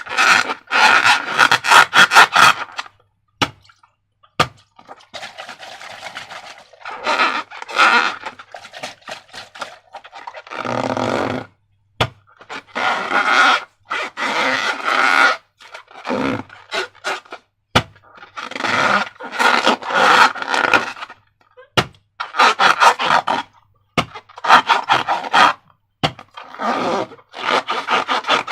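Wet, crackly squelching of slime being squeezed and worked by hand, in repeated bursts of a second or two with short pauses between them. A few sharp clicks are scattered through it.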